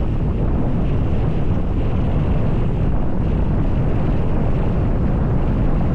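Strong wind from a close, dust-laden tornado buffeting the camera's microphone: a loud, steady low rush with no break.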